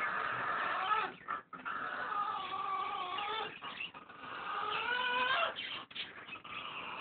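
Blue and gold macaw snoring in its sleep: a run of long, wavering, rasping tones, each a second or two long, broken by a few short gaps.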